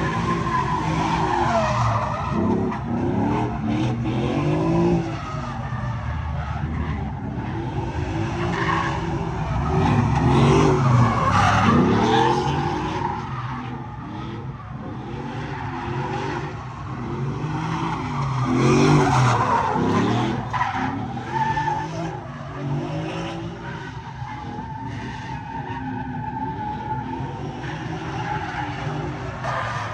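Pickup truck engine revving up and down over and over while its rear tyres screech and spin through burnout donuts.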